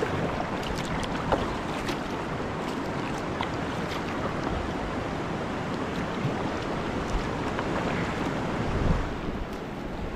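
Steady rushing of river whitewater, with wind buffeting the microphone, strongest near the end.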